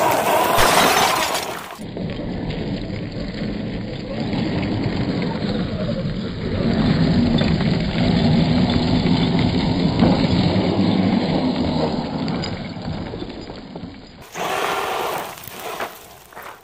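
Traxxas Unlimited Desert Racer RC truck driving fast over gravel and sand, with a steady crunching, rattling noise of tyres and stones that is loudest in the middle.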